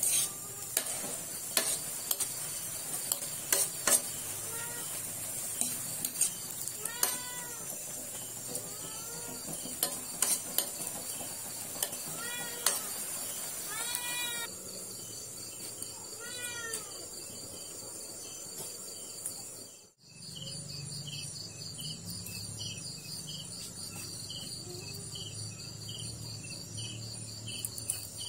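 Metal spoon scraping and clinking against a steel wok as stir-fried food sizzles, with an animal giving short rising-and-falling calls several times. After a cut about twenty seconds in, crickets chirp in a steady, even rhythm.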